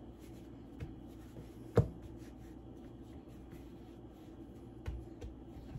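Hands pressing and rubbing pie dough on a floured wooden cutting board: soft rubbing noise with a few sharp knocks, the loudest about two seconds in, over a steady low hum.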